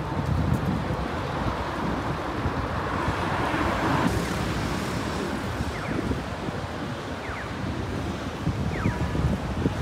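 City street traffic with wind rumbling on the microphone; a vehicle passing swells about three to four seconds in, and a few short high chirps come near the end.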